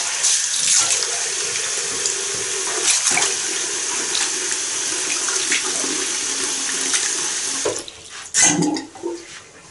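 Water from a washbasin mixer tap running steadily into the bowl and down the drain, which now takes it freely after being cleared with a wire. The tap is shut off near the end, followed by a brief louder sound as the last water drains away.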